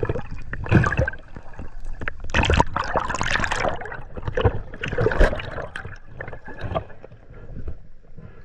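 Water splashing and gurgling in irregular bursts, busiest and loudest from about two to four seconds in.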